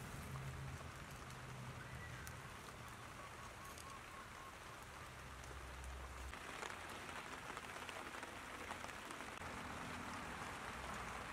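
Sauce-basted meat sizzling on a wire grill over charcoal: a faint, steady hiss with small crackles, getting louder about six seconds in.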